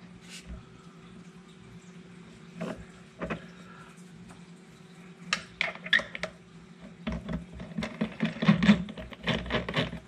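Small clicks and knocks, scattered at first and coming thick and fast in the second half, as a foam RC tire is slid onto a tire truer's axle and its retaining nut is tightened by hand. A steady low hum runs underneath.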